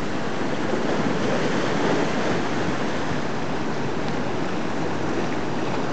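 Sea surf breaking and washing over a rocky shore: a steady rush of white water.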